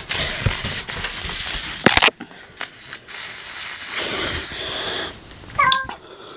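Silly string aerosol can spraying in quick sputtering hisses, about five a second, then a couple of knocks and a longer steady spray. Near the end a cat gives one short meow.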